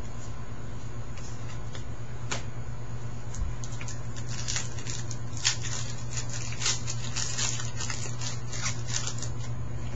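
Trading cards being handled and flipped through: a run of short, crisp rustles and taps, busiest from about four seconds in, over a steady low electrical hum.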